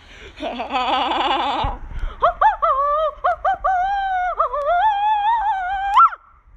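A high human voice making a long sung-out, wordless vocal sound: a quick trembling warble first, then a long held, wavering high note that bends upward and breaks off near the end.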